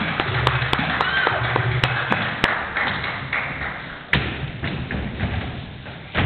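Knocks and thumps on a wooden stage floor as performers move about, over fading backing music, with a louder, sharper thud near the end.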